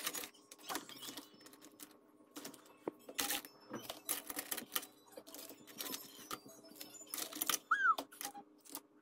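Metal tongs clicking and scraping against a perforated stainless steel steamer basket as steamed crab legs are lifted out, in a run of irregular light clatters. One short high whine sounds near the end.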